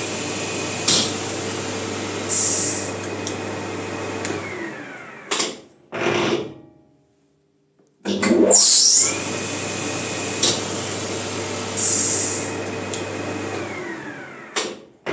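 Maximat lathe spinning up and running steadily, then slowing to a stop with a falling pitch as the bicycle disc brake fitted to it is applied, followed by two short sharp noises. The whole run-and-brake cycle happens twice.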